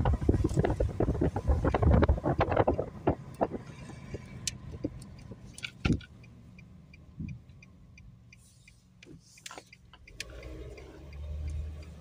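Car travelling with wind buffeting the microphone and road noise, loud for the first few seconds and then dying away to a faint low hum as the car slows. A low rumble swells again near the end.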